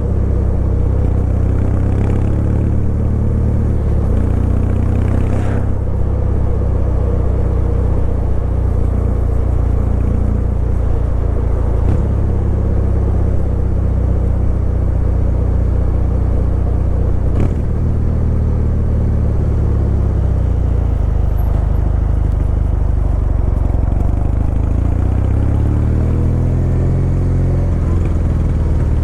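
Kawasaki W800's air-cooled parallel-twin engine running steadily as the motorcycle is ridden, with a low, even exhaust note. The note shifts a couple of times midway with short clicks, and the pitch climbs as it accelerates near the end.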